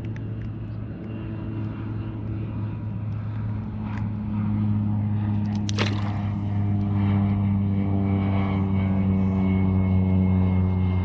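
An engine droning with a steady low hum that grows gradually louder as it comes closer. A sharp click sounds about six seconds in.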